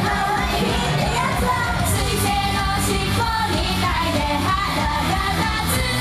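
A Japanese idol-group pop song played loud: girls' voices singing over a backing track with a steady beat.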